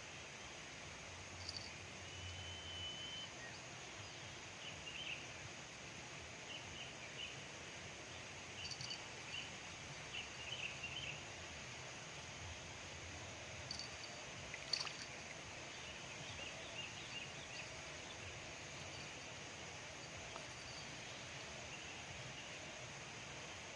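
Steady outdoor background noise with scattered faint high chirps and a few sharp ticks, including a brief steady whistle-like note about two seconds in.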